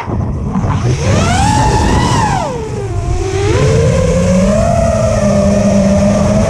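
FPV quadcopter's brushless motors and 5-inch three-blade props whining through the onboard camera's audio. The pitch rises and falls with the throttle: it climbs early on, dips about three seconds in, then settles into a steadier whine. A constant low rumble runs underneath.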